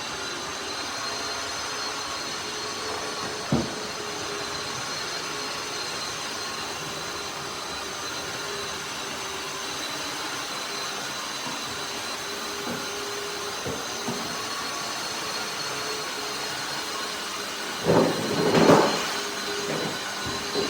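Tineco iFloor 5 Steam wet-dry floor vacuum running steadily, a constant rushing noise with a high whine. There is a short knock about three and a half seconds in and a louder surge near the end.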